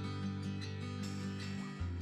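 Background music: acoustic guitar strumming over a sustained bass note.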